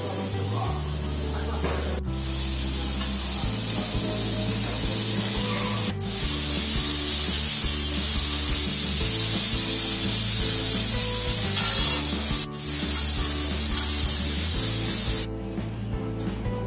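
Skewered meat and chicken sizzling on a hot flat griddle plate, a loud steady hiss that gets louder about six seconds in and stops abruptly near the end. Background music with low bass notes runs underneath.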